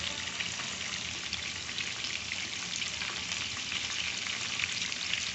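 Whole quails frying in shallow hot oil: a steady sizzle with many fine crackling pops.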